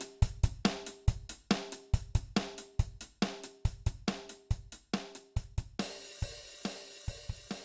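Background music of a drum kit playing a steady beat, with kick, snare and hi-hat hits. About six seconds in, a cymbal starts ringing on under the beat, and the music fades out.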